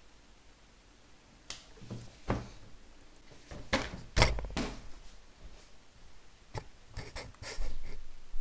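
Irregular knocks and thumps, about a dozen, the loudest about two and four seconds in.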